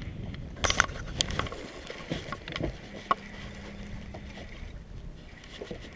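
Clicks and knocks of a baitcasting rod and reel being handled in a boat, several sharp ones in the first three seconds, over a low wind-and-water haze; a faint steady hum comes in about halfway through.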